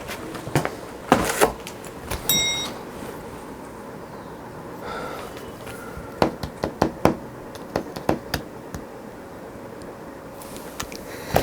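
A series of small knocks and clicks, with a short high beep about two seconds in.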